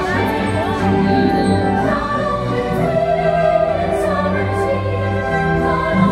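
A choir singing over an orchestra: the fireworks show's soundtrack music, slow and sustained.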